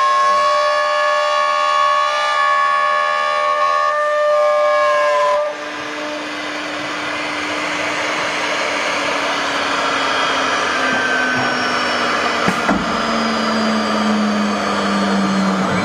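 CNC router spindle running at speed with a steady high whine as it cuts a wooden board; about five seconds in the sound turns rougher and noisier, with a lower hum that slowly falls in pitch.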